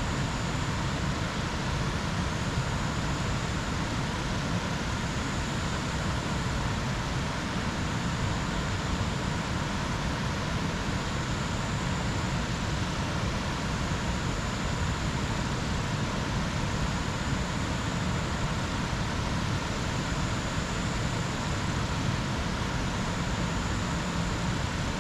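Jungle ambience: a steady rushing noise with a faint high-pitched tone above it that swells and fades every few seconds.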